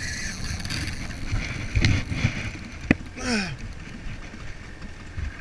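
Low steady rumble on a small boat on the water, with two sharp knocks and a brief falling-pitched vocal cry about three seconds in.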